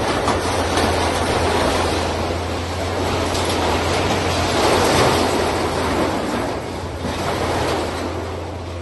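Demolition site noise: a steady low engine hum from heavy machinery under a loud, rushing wash of noise. The wash swells to its peak about five seconds in and eases off near the end.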